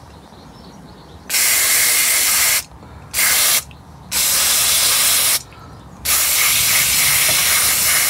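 Aerosol cleaner sprayed onto a motorcycle's rear brake caliper in four bursts of hissing: one of about a second, a short half-second squirt, another of just over a second, then a longer burst starting about six seconds in.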